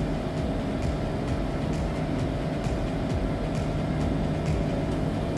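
Euroduplex TGV high-speed train running, a steady rumble with a low hum and faint regular ticks about twice a second.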